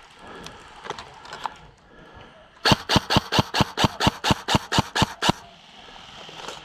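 Airsoft gun firing a rapid string of about thirteen sharp shots, about five a second, for under three seconds starting partway through.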